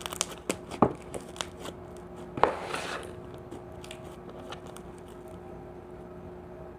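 Slime being squished and pressed by hand, giving a run of sharp clicks and crackles as trapped air pops, then growing quieter after about three seconds.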